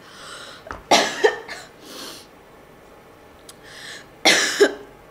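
A woman coughing twice, about a second in and again near the end, with breaths drawn in between: a coughing fit from the heat of very spicy tteokbokki sauce.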